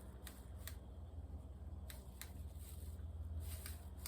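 Faint handling noise: a few scattered, irregular clicks and light rustling over a steady low hum.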